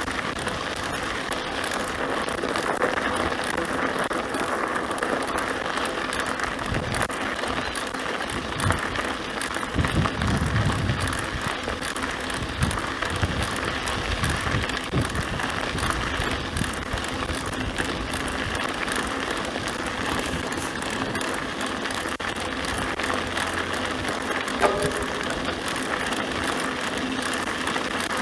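Mountain bike ridden along a sandy dirt track: steady tyre noise with rattling and clicking from the bike, and a stretch of low rumbling around the middle.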